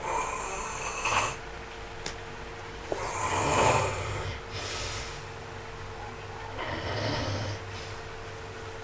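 A person asleep and snoring, four snores about two seconds apart.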